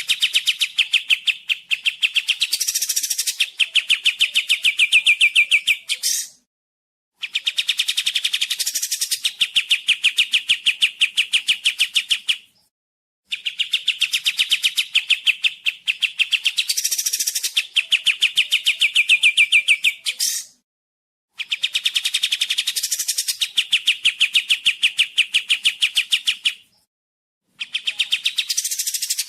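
Song of the kapas tembak songbird: long, fast chattering trills of rapid repeated notes, each phrase lasting about five to six seconds and separated by short pauses of about a second.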